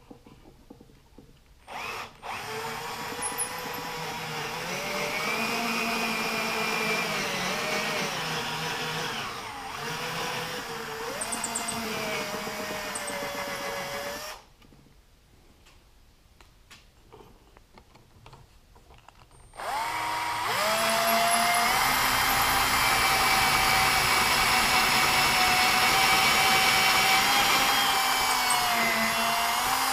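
Power drill boring the rear holes for Blum Tandem undermount slides through a shop-made jig into the back of a plywood drawer box. It runs in two long stretches with a pause between, the motor whine dipping in pitch now and then as the bit cuts.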